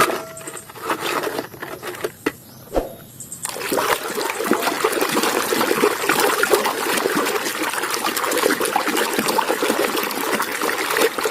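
Water running and splattering over a toy as it is washed, starting about three and a half seconds in and holding steady after a few light knocks.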